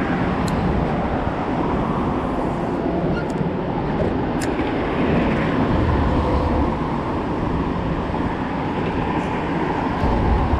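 Steady rumble of traffic on the highway bridge overhead, with a few faint ticks.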